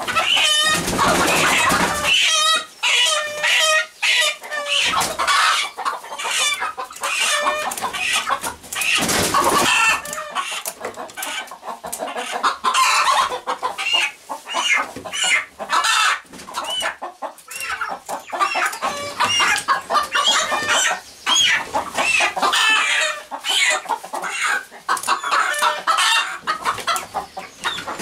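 Young chickens clucking and squawking, many short calls overlapping without a break. Two brief louder bursts of noise come about a second in and around nine seconds.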